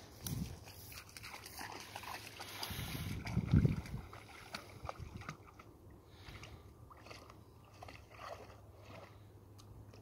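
A dog moving about in water, sloshing and splashing. A louder low rumble comes about three and a half seconds in, then quieter scattered splashes and ticks.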